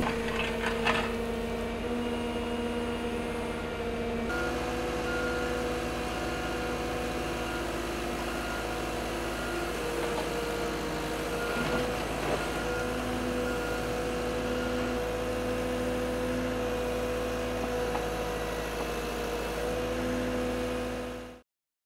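Diesel engine of a machine working a Cat backhoe attachment, running steadily, with a few short clanks about a second in. The engine note shifts slightly around four seconds in.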